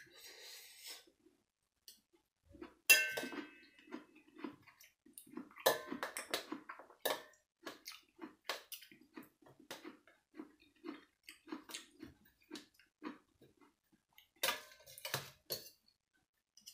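Metal spoon and fork clinking and scraping against a stainless steel serving tray, with chewing in between. The loudest is a ringing clink about three seconds in, with busier bursts of scraping near six seconds and near the end.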